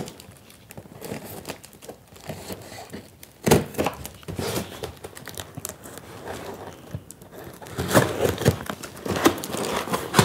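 Knife cutting the packing tape on a cardboard parcel, with cardboard crinkling and tape tearing, busier near the end as the flaps are pulled open. One sharp knock about three and a half seconds in.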